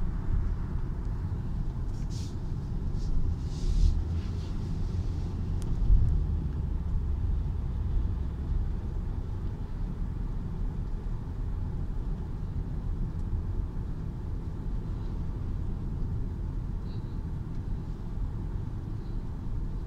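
Steady low road and engine rumble heard from inside a moving car. A few brief clicks and rustles come a few seconds in.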